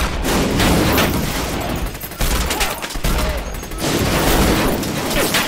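Film sound effects of rapid gunfire: many shots in quick bursts over a deep rumble.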